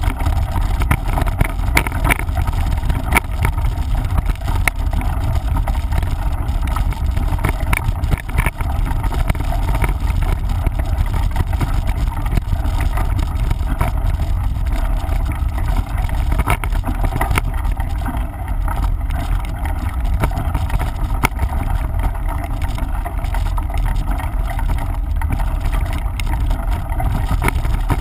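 Steady low rumble of wind buffeting the microphone of a camera riding on a mountain bike, with small scattered clicks and rattles of the bike on rough trail.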